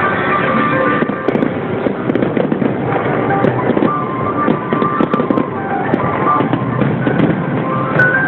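Fireworks bursting and crackling in quick irregular pops, heard together with loud music playing with the show.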